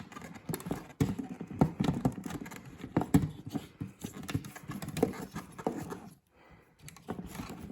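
Plastic console trim around a car's gear shifter being handled and pried apart by hand: a run of irregular clicks, knocks and plastic creaks. There is a brief lull near the end.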